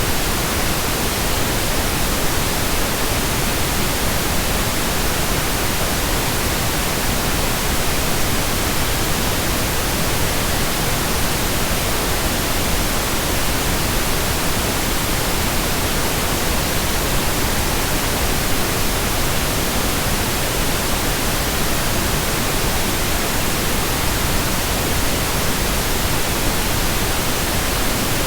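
Continuous synthetic pink noise: a steady, even hiss spread across all frequencies, unchanging throughout.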